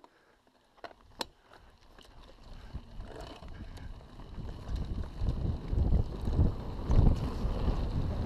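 Mountain bike rolling down a dirt forest trail: tyre rumble and wind buffeting the camera microphone grow steadily louder as the bike picks up speed. A couple of sharp clicks come about a second in.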